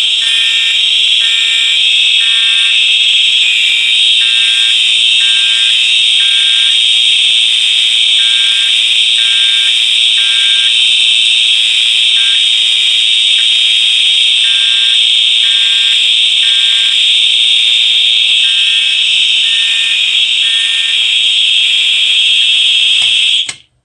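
Electronic fire alarm horns sounding together: one gives a loud, steady, high-pitched continuous tone while a quieter horn beeps in a temporal-three pattern, three beeps then a pause, over and over. Both cut off suddenly near the end. The owner warns that the alarms may be a little underpowered.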